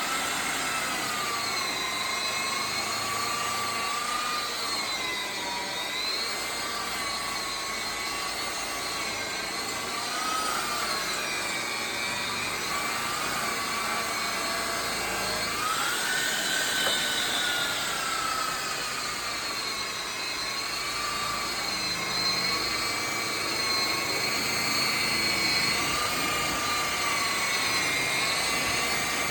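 Electric polisher motor whining steadily as it works the bumper, its pitch dipping and rising every few seconds as the load on the pad changes.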